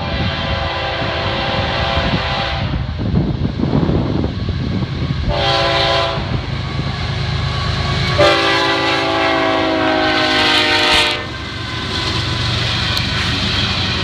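Air horn of an approaching Florida East Coast Railway train's lead GE ES44C4 diesel locomotives, sounded three times: long, short, then long. Under the horn the locomotives' diesel engines give a steady low rumble.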